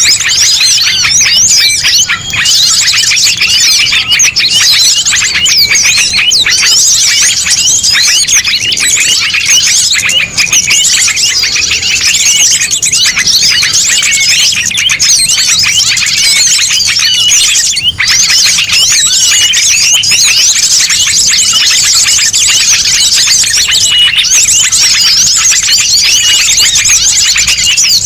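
Small songbirds of mixed species chirping and twittering at once in a loud, dense chorus, with no pauses. It is a bird-lure recording of the kind used to draw small birds in for trapping.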